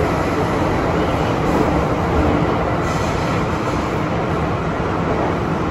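Steady running noise heard inside an MTR M-Train metro car moving through a tunnel: an even rumble of wheels on rail and running gear with a low hum underneath.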